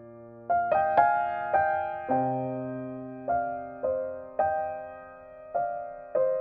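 Slow, gentle solo piano music: single notes struck about once or twice a second over a held bass note, each ringing out and fading.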